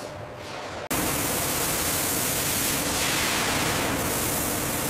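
A steady, even rushing hiss that switches on abruptly about a second in, after a fainter background noise.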